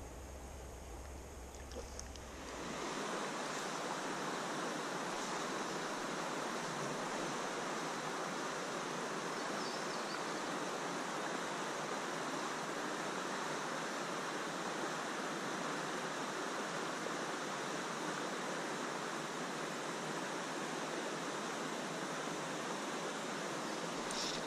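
Steady rushing of flowing creek water, which gets louder and fuller about two and a half seconds in and then holds even.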